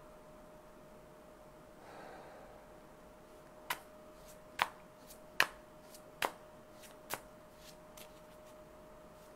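Tarot cards being shuffled by hand: a run of sharp card slaps, roughly one a second, starting a few seconds in, over a faint steady hum.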